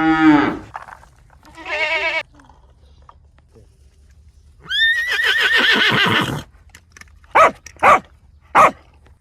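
Farm animals calling: a cow's low moo trails off at the start, then a short wavering bleat-like call, a longer high wavering call, and three short sharp calls near the end.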